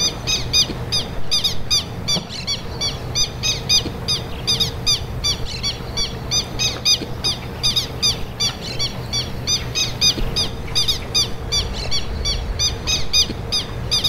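Southern lapwing calling in alarm: a rapid, even series of sharp, harsh notes, about five a second, the scolding this bird keeps up at intruders near its nest on the ground.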